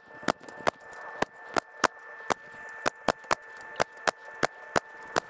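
Power staple gun firing staples through chicken wire into a wooden board, about fifteen sharp snaps in quick, uneven succession.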